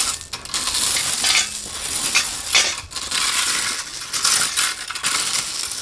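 Rake dragged through rounded landscape stones, the stones rattling and clinking against each other in repeated scraping strokes.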